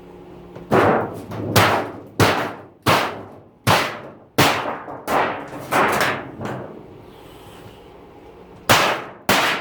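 Hammer blows striking the metal of a dishwasher being scrapped, each a loud clang with a short ring: about eight in an even rhythm, then a pause, then two more near the end.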